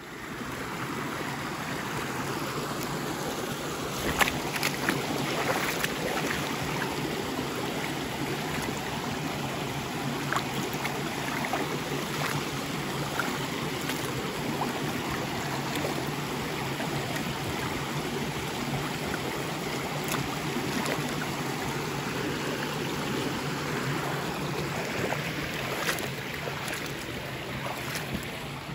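Steady rushing noise with scattered sharp knocks and scrapes as chicken droppings are scraped out of a coop.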